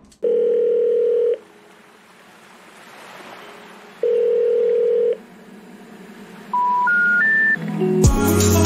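Telephone call tones: two long, steady ringback beeps a few seconds apart, then three short beeps stepping up in pitch. The rising three-note sequence is the special information tone a phone network plays when a call cannot be completed. Music starts near the end.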